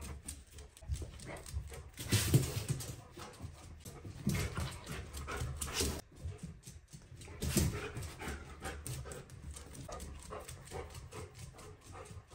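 A Dalmatian moving about on a laminate floor, its claws clicking in an uneven patter, with a few louder rustling noises about two, four and seven and a half seconds in.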